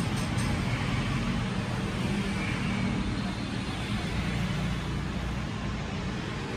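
Steady background road-traffic noise with a low rumble.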